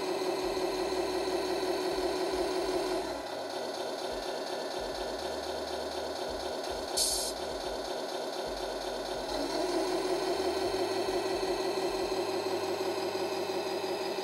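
Electronic sound unit of a 1/14 Tamiya Knight Hauler RC truck playing a simulated V8 truck engine through its small speaker, running up under throttle, dropping back to idle about three seconds in, then rising again near ten seconds. A short hiss comes about seven seconds in.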